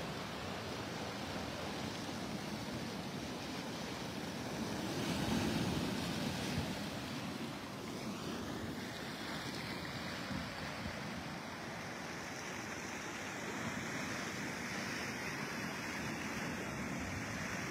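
Sea surf washing onto a pebble beach, a steady rush that swells louder about five seconds in.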